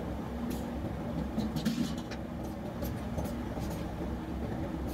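Steady low machinery rumble with a faint hum, with a few light clicks and splashes from hands working at a water test tank.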